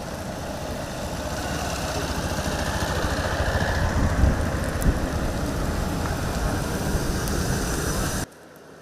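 Dornier 228's turboprop engines running, growing steadily louder, until the sound cuts off abruptly near the end.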